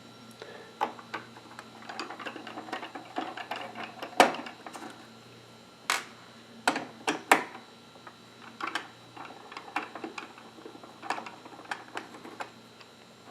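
Irregular small clicks, taps and scrapes of a Samsung 850 EVO SSD's casing being worked open by hand with a small screwdriver, with a few sharper clicks in the middle.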